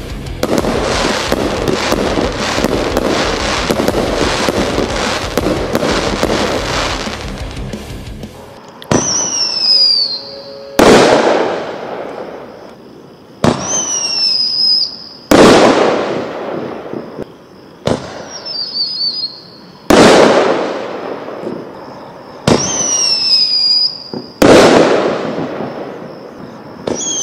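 Music for about the first eight seconds, then 3D Pyro whistling artillery shells going off one after another. Each shell gives a high whistle that slides slightly down in pitch for a second or two, then ends in a loud bang as the shell breaks. Four whistle-and-bang pairs come about every four to five seconds, and a fifth whistle starts near the end.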